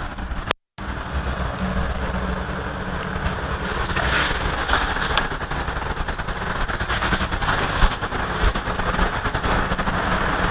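Board eraser scrubbing chalk off a chalkboard in repeated strokes: a continuous rubbing hiss dotted with small ticks. The sound cuts out completely for a moment about half a second in.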